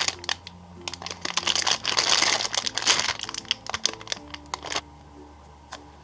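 Clear plastic packaging bag around a foam squishy toy crinkling as it is handled, a dense crackling that is loudest from about one to five seconds in. Background music plays throughout.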